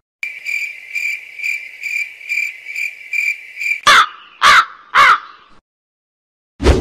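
Comedy sound effect of a cricket chirping in a steady high pulsing tone, about three pulses a second, followed by a crow cawing three times, each caw falling in pitch. A short sharp noise comes near the end.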